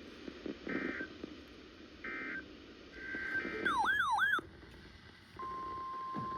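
Emergency Alert System broadcast tones. It starts with three short bursts of SAME header data tones, about a second apart. A loud warbling electronic sweep then rises and falls twice. About five seconds in, the steady 1050 Hz NOAA Weather Radio warning alarm tone begins, announcing the next weather warning.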